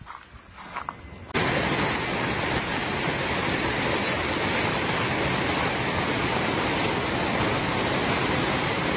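Hailstorm: hailstones and heavy rain pelting down in a dense, steady hiss that cuts in abruptly about a second and a half in, after a quieter opening with a few faint ticks.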